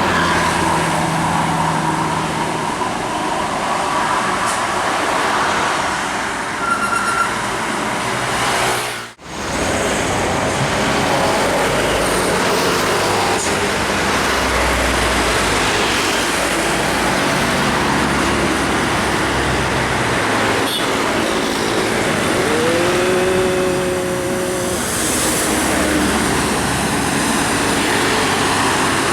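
Road traffic passing at speed: engine and tyre noise from buses and other vehicles, dropping out briefly about nine seconds in. Near the end a vehicle horn sounds two notes together, held for about two seconds.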